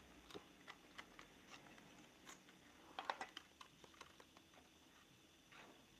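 Faint light plastic clicks and taps from handling a DJI Mavic Mini drone's body, folding arms and gimbal cover, with a quick run of clicks about three seconds in.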